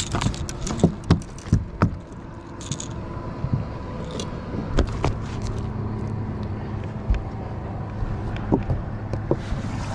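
Striped bass flopping on a carpeted boat deck: a quick run of thumps and knocks in the first two seconds, then a few scattered knocks, over a steady low hum. Wind rushes on the microphone near the end.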